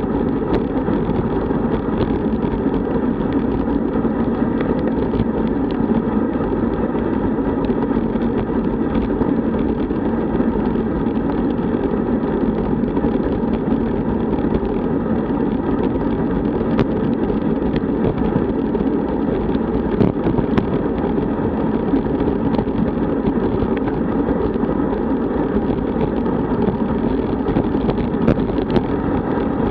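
Steady rushing wind noise on a bike-mounted camera's microphone, mixed with tyre hum on asphalt, while a road bike rides at speed in a group.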